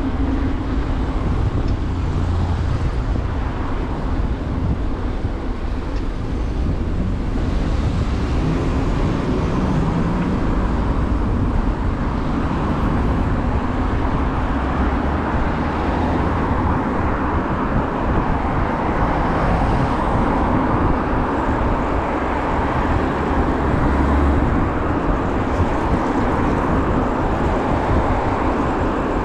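Steady city road traffic heard from a moving bicycle: cars running in the lanes alongside, with a low rumble throughout.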